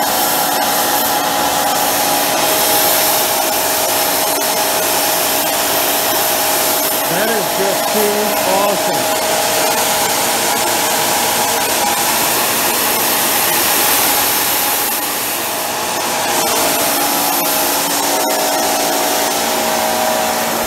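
Homemade propane micro jet burner running steadily, a high-velocity air jet swirling air and propane through its small red-hot chamber: a loud, even rushing hiss with a steady hum of several tones underneath.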